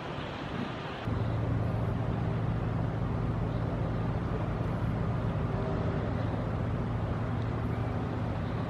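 Steady low drone of a passing inland cargo ship's diesel engine over a constant rush of wind and water noise. The drone comes in suddenly about a second in and then holds even.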